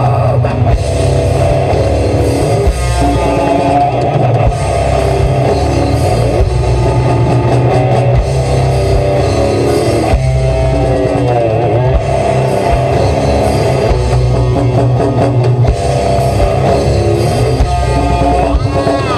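Live heavy rock band playing: distorted electric guitars and bass over a drum kit, loud and continuous.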